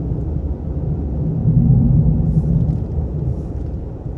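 Dodge Ram 3500 pickup driving on a highway, heard inside the cab: a steady low rumble of engine and tyre noise that swells briefly about a second and a half in.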